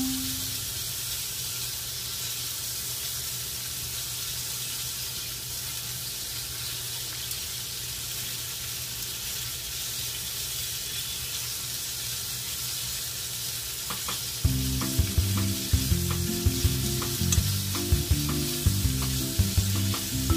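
Sliced pork and onion sizzling steadily in a hot frying pan as they are stirred. Background music comes in about two-thirds of the way through and is then louder than the sizzle.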